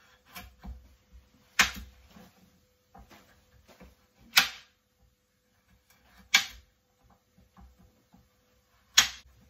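Kitchen knife slicing through fresh carrots on a cutting board: a loud knock as the blade hits the board about every two to three seconds, four in all, with fainter crunches and taps between.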